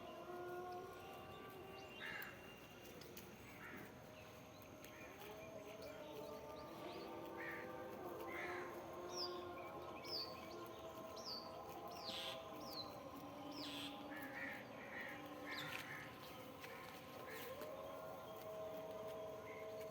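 Crows cawing repeatedly while smaller birds give quick, high, falling chirps, faint, over several steady held tones.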